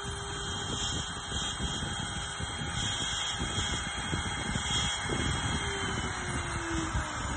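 CNC router spindle running, its end mill cutting a wooden cylinder turned on the rotary axis, with a steady whine over rough cutting noise. About five seconds in, a tone slides down in pitch as the machine changes its motion.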